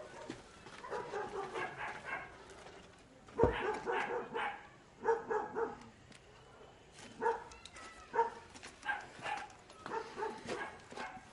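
A dog barking repeatedly in short runs of barks, with a single loud thump about three and a half seconds in.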